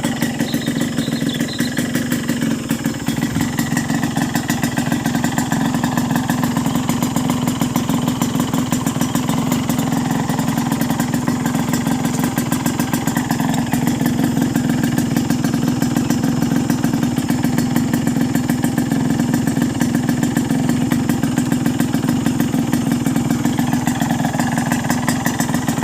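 Yamaha RX-King's single-cylinder two-stroke engine idling steadily with a fast, even pulse and a 'klotok klotok' knocking clatter, a fault whose cause the owner does not know.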